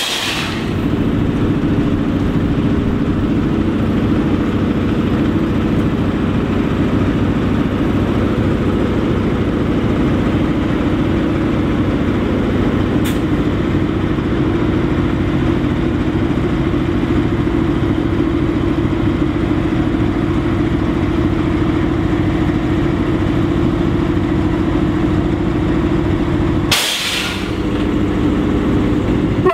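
Diesel engine of an SU42 diesel locomotive running steadily, a loud even drone that holds one pitch throughout. A short burst of hiss comes right at the start and again about 27 seconds in.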